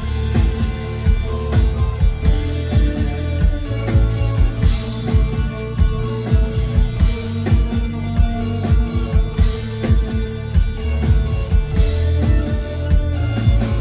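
Live band playing an instrumental passage: electric stage keyboards over a drum kit keeping a busy, steady beat, with deep bass notes underneath.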